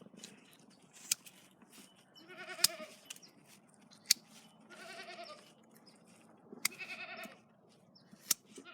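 Kiko goat bleating in four short calls about two seconds apart, with sharp snipping clicks of hoof trimmers cutting hoof wall in between.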